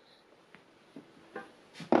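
Handling noise of a metal bandsaw part on a workbench: a faint click and a few soft knocks, then a louder sharp knock near the end as the part is set down.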